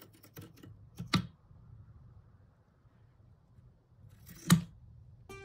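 Scissors snipping through the warp threads of a woven band on an inkle loom, cutting the finished band free: a few faint snips, a sharp double snip about a second in, and a louder single snip near the end.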